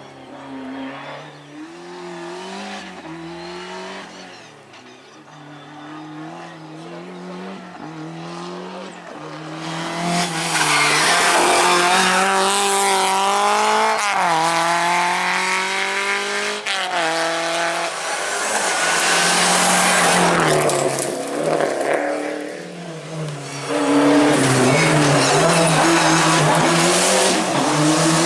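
Historic rally car engines revving hard, pitch climbing and dropping repeatedly through gear changes. Fainter at first, then loud and close from about ten seconds in.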